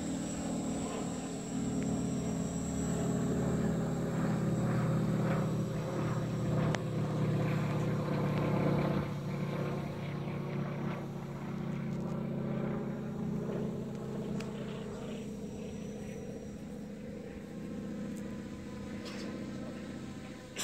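Multirotor parcel-delivery drone taking off and climbing, its propellers giving a steady buzzing hum that swells in the first seconds and slowly fades as it rises away.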